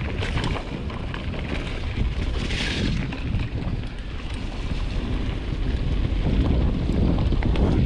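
Wind buffeting the microphone while a mountain bike is ridden over a muddy trail: a constant low rumble with scattered clicks and rattles from the bike, and a short hiss about two and a half seconds in.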